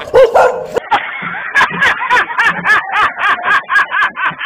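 Fake dog barking: quick, high yaps about four a second from around a second in, after a longer bark at the start.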